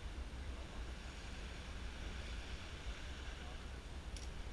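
Steady outdoor background noise with a low rumble, and one faint click near the end.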